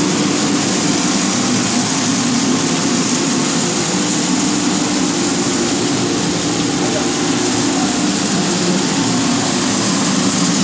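Puffed-rice (muri) making machine running steadily: a belt-driven roasting drum and its drive wheels give an even, unchanging mechanical running noise with a low hum and a high hiss.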